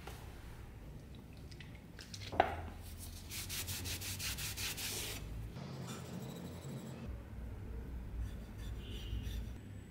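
A cloth rubbed quickly back and forth along a steel knife blade, after a single sharp clink with a brief ring about two and a half seconds in.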